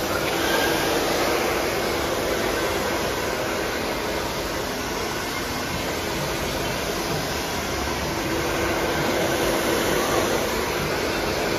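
Handheld hair dryer blowing steadily, a continuous rush of air with a faint motor hum, drying short freshly cut hair.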